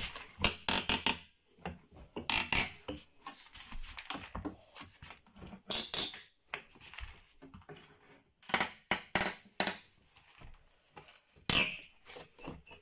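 Old wooden skirting boards being handled and worked loose with a crowbar: irregular knocks, cracks and clatter of wood, some in quick runs.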